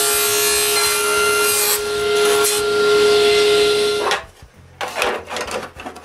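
Table saw running and cutting a strip out of a plywood board: a steady whine over the noise of the cut, which stops suddenly about four seconds in. Light knocks and rubbing of the board being handled follow.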